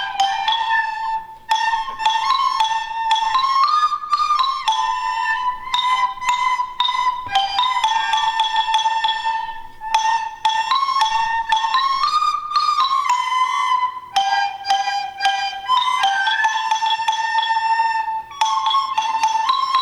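Instrumental music: a light flute-like melody over quick mallet-percussion notes, with a few brief pauses between phrases.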